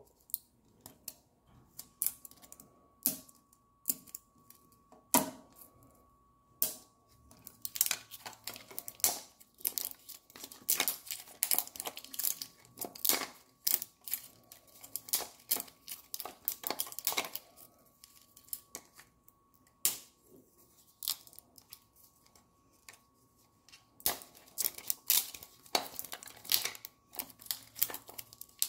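Plastic wrapping being peeled and torn off a toy capsule by hand, with crinkling and tearing crackles. They come in scattered snaps at first, then dense runs in the middle and again near the end.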